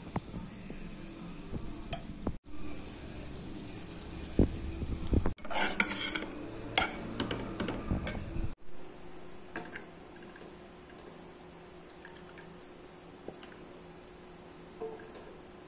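Metal utensils stirring and scraping in cooking pots: a perforated skimmer turning cooked rice and a spoon stirring sautéed green peppers, with clinks of metal on the pot and a light sizzle. The clinking and scraping is loudest and busiest in the middle, then gives way to a quieter stretch with only occasional ticks.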